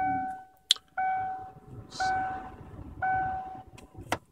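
Kia Sedona's dashboard warning chime sounding four times, about once a second, as the ignition is switched on. There is a sharp click just before the second chime and more clicks near the end.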